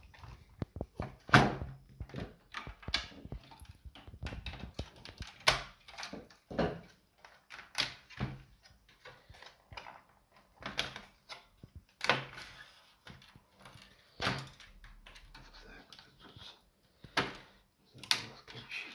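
Irregular clicks, knocks and clatter of a cassette deck being taken apart by hand: plastic and metal parts of the tape mechanism and chassis being handled and knocked, with several sharper knocks scattered through.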